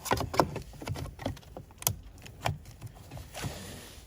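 Irregular clicks and knocks of a car wing mirror's plastic parts being handled and pressed together.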